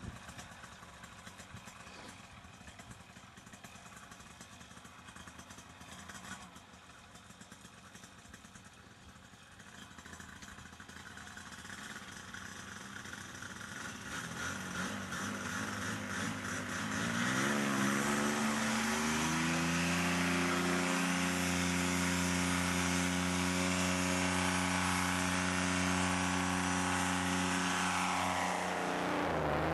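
Paramotor engine and propeller running quietly at low throttle, then revving up with a rising pitch about sixteen seconds in and holding a steady, loud full-power drone for the takeoff run.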